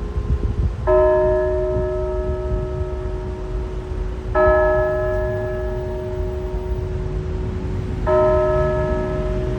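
A large bell struck slowly three times, about three and a half seconds apart. Each loud stroke rings on with several overtones until the next.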